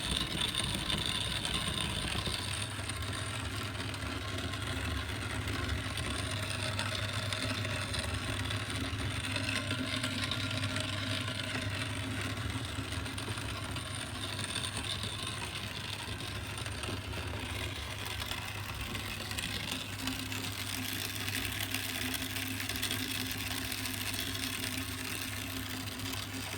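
Electric grain grinder running steadily, its motor giving a constant low hum over an even whirring noise.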